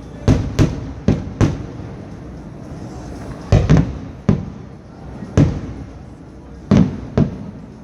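Fireworks exploding in a display: about ten sharp bangs at irregular intervals, some in quick pairs, each followed by an echoing tail.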